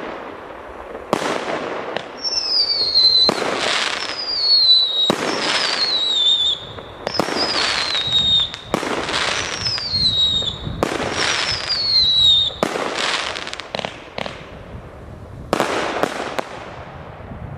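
Kometa 'Libia' 1.2-inch multi-shot fireworks cake firing, one shot about every two seconds, with many shots trailed by a high whistle that falls in pitch. Near the end, the whistles stop and the shots come faster.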